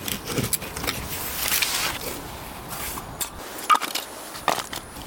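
Intermittent scraping and rustling from handling things, with a few sharp clicks in the second half.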